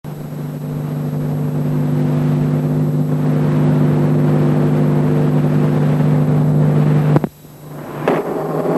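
Steady low electrical buzz with hiss from a VHS tape playback over silent title cards, cutting off abruptly about seven seconds in. After a click the film's soundtrack begins to rise near the end.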